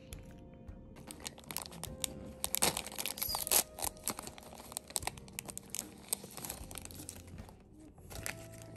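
An individual snack wrapper being torn open and crinkled by hand, a run of sharp crackles and rustles that is loudest about three seconds in. It is the single wrapper of a small sweet potato biscuit.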